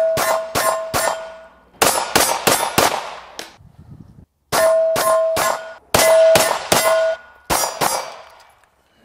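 Ruger American 9mm pistol fired in quick strings, about fifteen shots, with a pause of a second or so midway. Many shots are followed by a brief metallic ring from steel targets being hit.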